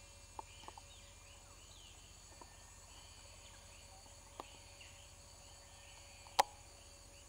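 Faint forest ambience: many short, repeated chirping calls from small creatures over a steady low hum, with a few light clicks and one sharper click a little over six seconds in.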